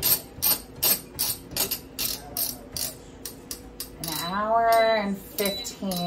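Timer dial of a countertop air fryer oven clicking step by step as it is turned, about two to three clicks a second for the first three and a half seconds. About four seconds in, a woman makes a drawn-out wordless vocal sound, rising and falling in pitch; this is the loudest part. A shorter one follows near the end.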